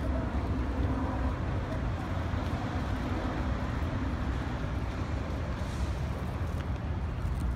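Steady city traffic noise, a low rumble with an even hiss above it.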